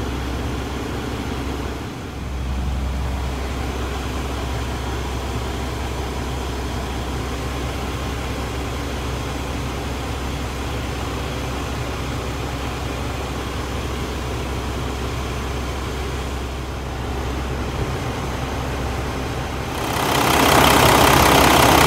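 Paccar MX13 six-cylinder diesel in a Kenworth T660 idling steadily, heard from inside the cab, as the engine warms up to purge air from a freshly refilled cooling system. About twenty seconds in, a much louder rushing noise comes in over it.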